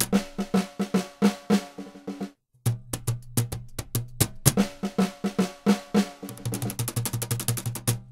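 Snare drum played with sticks together with hand strokes on a Peruvian cajón, in a rhythmic percussion pattern. There is a short break about two seconds in, and a fast snare roll near the end.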